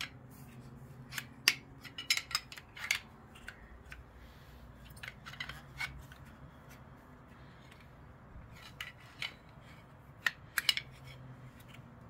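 Steel tire iron prying between the pads of a Honda CBR500R front brake caliper to push the pads back into the caliper: irregular metallic clicks and light scrapes of steel on the pads and caliper body, coming in small clusters.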